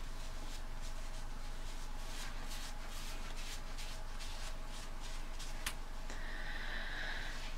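Soft rubbing of micellar water being wiped over the face, a run of light, repeated wiping strokes that lift off the last of a face mask.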